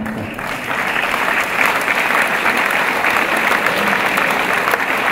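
Audience applauding, the clapping building up about half a second in and then holding steady and loud.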